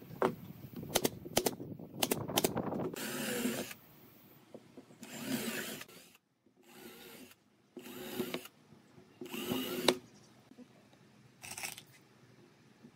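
Cordless drill boring holes through a pine board, run in six short bursts of under a second each. Before the first burst come a few sharp knocks of the wood being handled.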